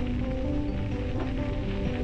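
Background music with a melody of held notes over a steady rushing noise.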